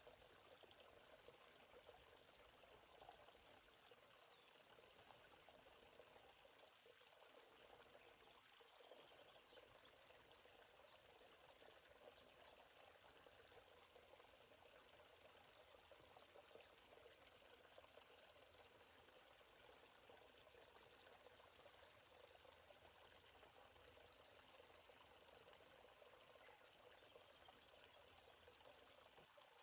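A steady, high-pitched insect chorus drones without a break over the faint, even rush of a babbling stream.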